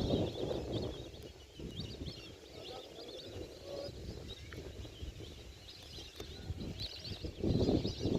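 A flock of migratory birds calling, with many short, high chirps overlapping continuously. Low rumbling noise, like wind on the microphone, comes at the start and again near the end.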